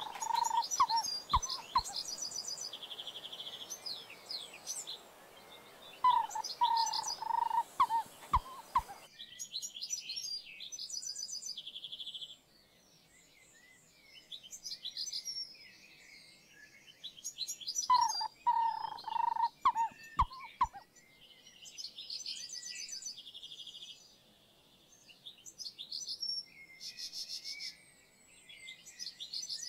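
Several birds calling at once: high chirps and trills, a short buzzy note that recurs every few seconds, and a louder lower whistled phrase that comes three times.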